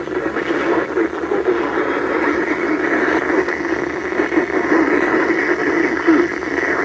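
Steady static hiss from a radio receiver carrying a weather warning broadcast, thin and muffled, with no clear speech.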